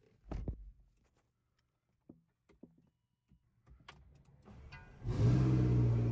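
A low thump, then a few light clicks, then the McLaren MP4-12C's twin-turbo V8 cranks briefly and fires about five seconds in. It settles into a loud, steady high idle just after the cold start.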